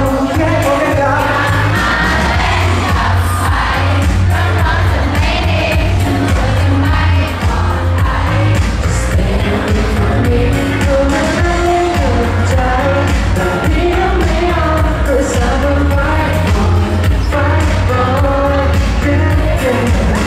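Male pop vocal sung live into a handheld microphone over an amplified pop backing track with a heavy, pulsing bass.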